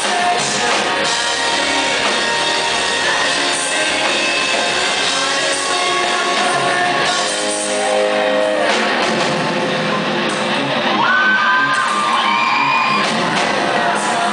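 Pop-punk band playing live in a concert hall: electric guitar, drum kit and a lead singer, loud and continuous, with a thin low end.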